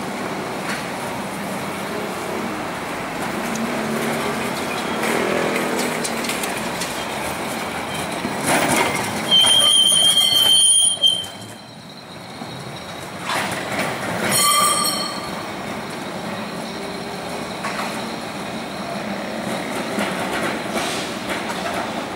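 Historic Lisbon tram running on street rails amid traffic noise. About nine seconds in, its steel wheels give a loud, steady high-pitched squeal for about two seconds, and a second, shorter ringing squeal follows around fourteen seconds in.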